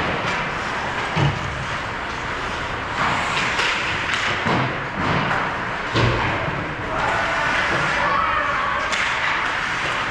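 Ice hockey play on a rink: skates scraping the ice and sticks clacking, with several thuds, about a second in, at four and a half seconds, and the loudest about six seconds in.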